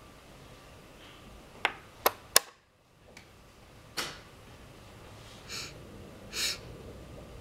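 Sharp wooden clicks and knocks of a chess piece being picked up and set down on the board and the chess clock being pressed, three quick ones close together and another about a second and a half later, followed by two softer rustles near the end.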